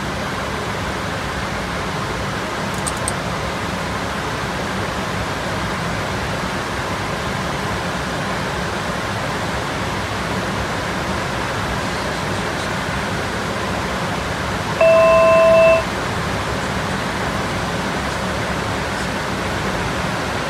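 Steady rushing cockpit noise of a Dornier 328Jet in flight. About three-quarters of the way through, a one-second electronic alert tone, the loudest sound here, sounds and cuts off sharply.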